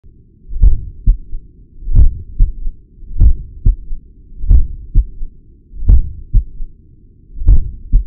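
Human heart sounds picked up at the cardiac apex by a Stemoscope electronic stethoscope: a slow lub-dub, about 44 beats a minute, with a broad first thud and a sharper second one close behind it. The recording carries a heart murmur and a third heart sound (S3).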